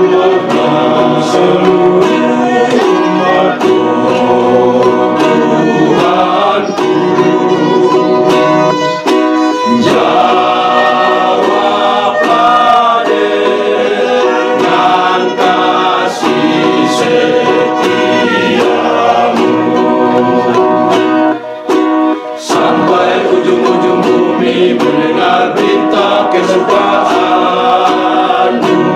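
Men's choir singing a hymn in several-part harmony, accompanied by a strummed ukulele. There is a brief break in the sound about three-quarters of the way through.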